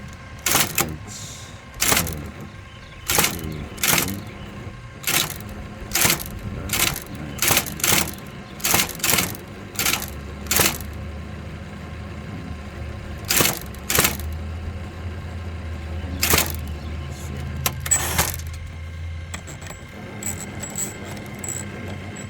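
VariTyper Model 1010 composing typewriter typing a sample line: sharp, irregularly spaced key strikes, roughly one a second, stopping a few seconds before the end.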